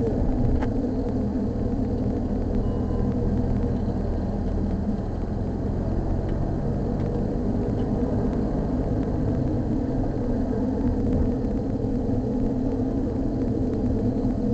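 Steady low rumble of a Mitsubishi Delica D:5 minivan driving along at road speed, engine and tyre noise heard from inside the cabin.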